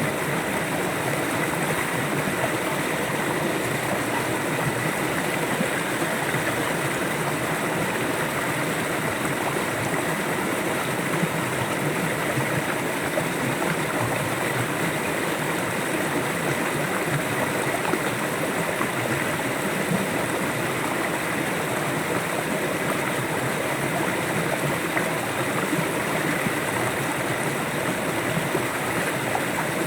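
River water flowing steadily, a constant rushing stream.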